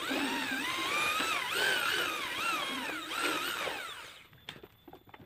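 Electric hand drill running with its motor pitch repeatedly rising and falling, as under changing trigger or load, for about four seconds before it winds down.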